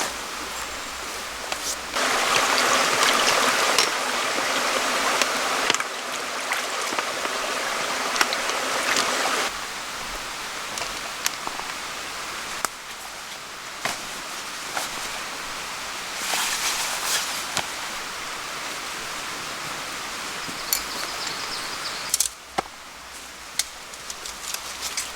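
Wood campfire crackling with frequent sharp pops, under a steady hiss that swells loudly for several seconds early on and again briefly past the middle.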